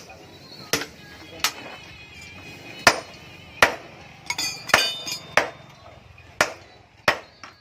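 Hand hammer striking hot iron on an anvil in a steady series of blows, about one every three quarters of a second, each with a short metallic ring.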